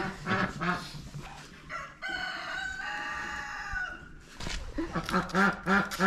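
A rooster crowing in the background: one long held call lasting about two seconds, starting about two seconds in. It is followed near the end by a louder quick run of short low calls.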